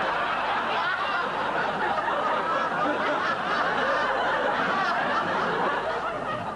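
Studio audience laughing, many people at once in a steady wash of laughter.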